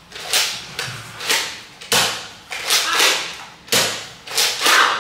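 Green plastic toy blaster fired again and again, a sharp crack with a short fading tail each time, about two shots a second at an uneven pace.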